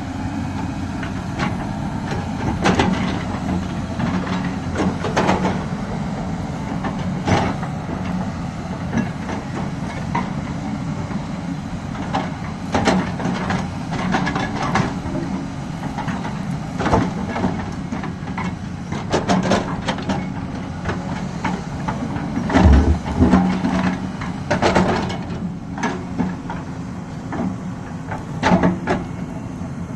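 Excavator's diesel engine running steadily, with irregular sharp metal knocks and clanks from repair work on the machine; the loudest knocks come in a cluster about three quarters of the way through.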